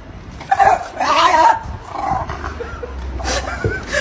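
A dog vocalizing: a few loud, wavering calls about half a second to a second and a half in, then a shorter one around two seconds in.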